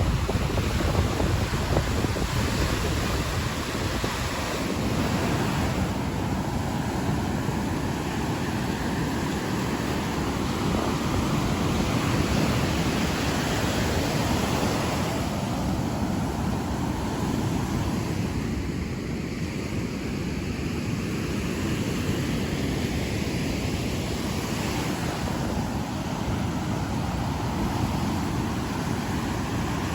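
Sea surf: waves breaking and washing on the shore in a continuous hiss and rumble that swells and eases every few seconds, with wind buffeting the microphone.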